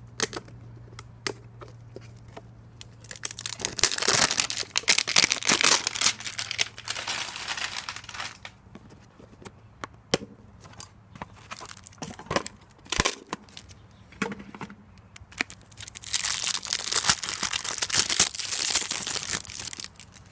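A pack wrapper being torn open and crumpled by hand, in two long crinkling stretches with sharp clicks of handling between them.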